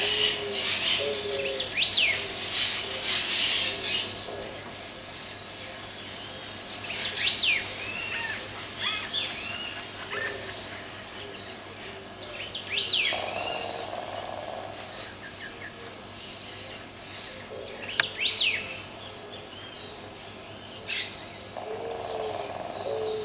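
Birds calling: a sharp high chirp repeats about every five seconds over scattered softer chirps, with a low cooing phrase at the start and again near the end.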